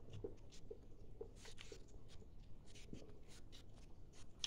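Faint eating sounds: small irregular clicks and scrapes as rice and chicken are picked from a plate by hand and chewed, with a slightly louder click at the very end.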